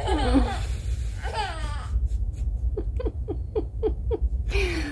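A woman laughing: two drawn-out cries that fall in pitch, then a quick run of about seven short 'heh' pulses, and another falling cry near the end, over a steady low rumble.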